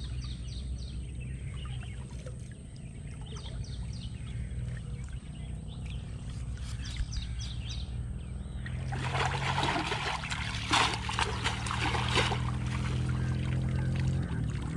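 Water splashing and sloshing as a cast net is hauled up out of waist-deep creek water by hand, loudest from about nine to twelve seconds in, after a quieter stretch of gentle water movement.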